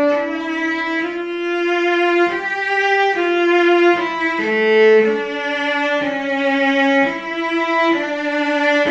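A 2021 cello played solo with the bow: a slow melody of sustained notes in its tenor range, each note full of overtones and moving to the next every half second to a second.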